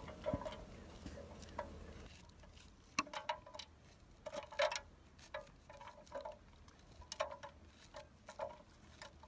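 Knife blade shaving kernels off a raw corn cob into an open aluminium drink can: irregular crisp scrapes and clicks, some with a brief metallic ring as kernels hit the can.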